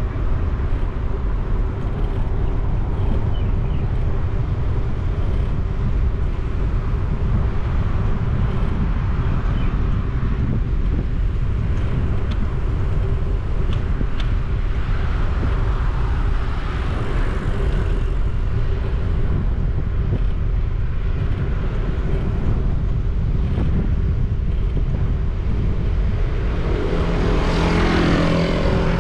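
Street traffic heard from a moving motorcycle: a steady engine hum over a heavy low rumble. Near the end a louder vehicle passes close by, its engine note falling in pitch.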